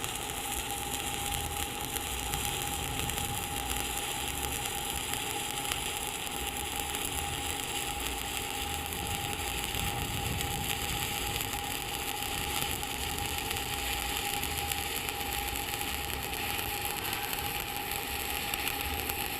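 Welding arc burning steadily while a cap bead is run on a T-joint, a continuous crackling sizzle, with a steady tone underneath.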